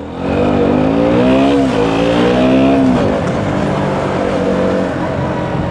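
KTM Duke 125 single-cylinder four-stroke engine accelerating: the note rises, dips briefly at a gear change and rises again, then drops sharply about three seconds in as the throttle is eased, settling to a steadier, lower note.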